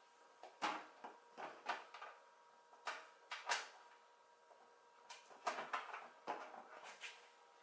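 Irregular clicks and knocks from a PC case's cover being handled and fitted shut, about a dozen sharp hits with a quiet gap in the middle.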